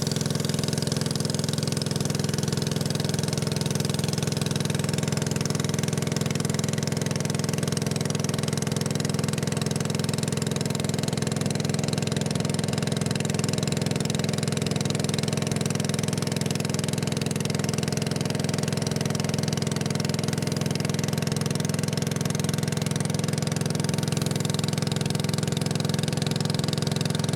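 A small motorboat's engine running steadily at an even speed, a constant low drone with no change in pitch.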